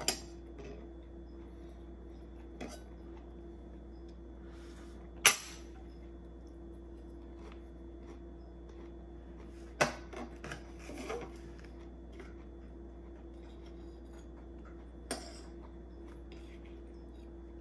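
Metal knife and fork clinking and scraping against a plate while cutting a Pop-Tart: a handful of sharp clinks, the loudest about five seconds in, others near ten and fifteen seconds, over a steady low hum.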